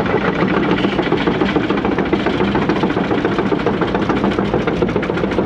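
Engine idling steadily with an even, rapid pulse.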